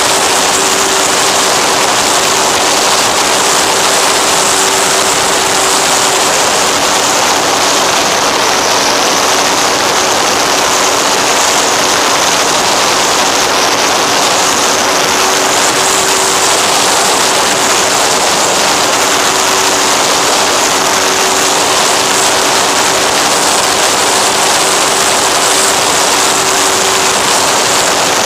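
Steady loud rush of airflow with a faint steady hum from the electric pusher motor and propeller, heard on board an FX-79 flying wing in cruise flight.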